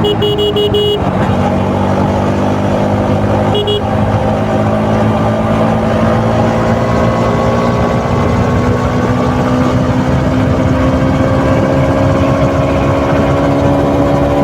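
KTM RC 200's single-cylinder engine through its stock exhaust, running under way and rising slowly in pitch as the bike gradually gains speed. A horn honks for about a second at the start and briefly again a few seconds in.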